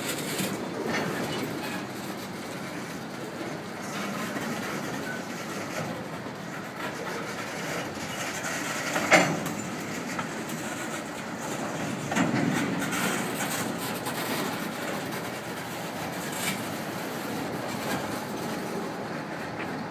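Empty gondola cars of a slow freight train rolling past, their wheels clacking over the rail joints, with a single sharp metallic bang about nine seconds in.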